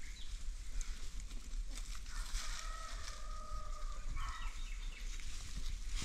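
Free-range chickens calling: one long, level call of nearly two seconds starting about two seconds in, followed by a few short clipped notes.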